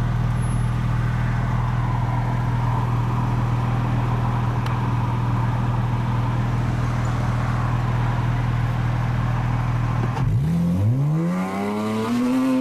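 Porsche Cayman S engine with an Armytrix exhaust (headers, sport cats and titanium cat-back), heard from inside the cabin: a steady low drone at constant revs for about ten seconds, then the note drops and climbs again as the car accelerates hard near the end.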